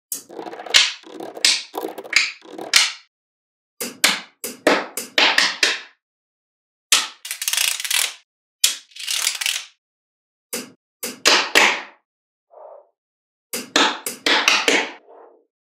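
Small magnetic balls clicking and clattering as strips and rows of them snap onto a magnet-ball model. The sound comes in quick bursts of many small clicks, about half a dozen bursts in all, with short silences between them.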